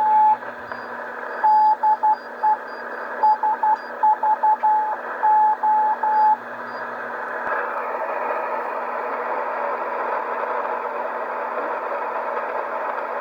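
Morse code (CW) signal on an Icom IC-735 shortwave receiver: a single beeping tone keyed on and off in short and long elements for several seconds. About seven seconds in, it gives way to steady shortwave static hiss.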